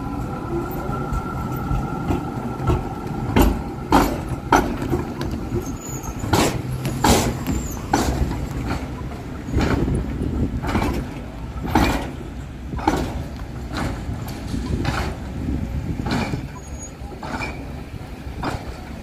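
Melbourne B2-class tram pulling away and running off over the tracks, with a steady rumble. A high whine fades in the first few seconds, then the steel wheels clack sharply over rail joints and crossings, roughly once a second.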